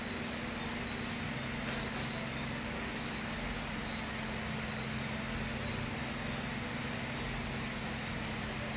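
Steady background hum and hiss with a constant low tone, broken by a few faint light clicks.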